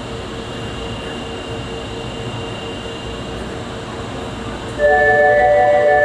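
Subway platform ambience with a repeating electronic beep. About five seconds in, a much louder electronic chime melody starts.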